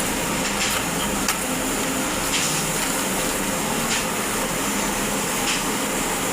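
Electric arc welding: a steady hiss with occasional sharp crackles.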